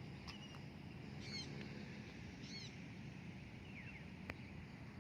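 Faint outdoor bird calls: two short high chirps, about a second apart, and a brief gliding call later, over a low steady background. A single sharp click comes near the end.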